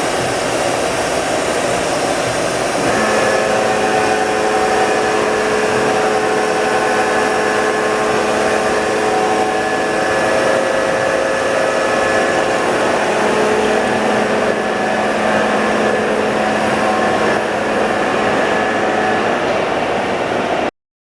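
Nakamura Tome SC-250MSC CNC turning center running, a steady whirring drone; about three seconds in, several steady whining tones join it as something in the machine spins up. The sound cuts off suddenly near the end.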